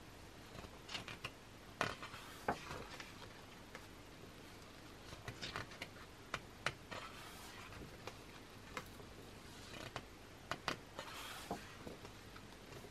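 Thick glossy pages of a large hardcover photobook being turned and pressed flat by hand: faint soft paper swishes with scattered sharp clicks and taps.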